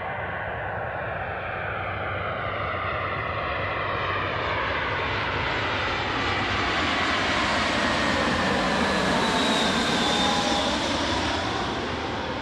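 Airbus A320-211 on final approach passing the listener: its CFM56 turbofan engines give a rushing jet noise with a whine, building up to the loudest point about ten seconds in and then starting to fade, while the whine slides down in pitch as it goes by.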